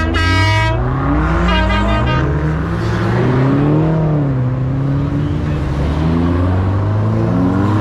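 Cars driving past one after another, their engines accelerating and easing off in turn; among them is a Vanderhall three-wheeler passing close by. Two short high-pitched tones sound in the first two seconds, about a second and a half apart.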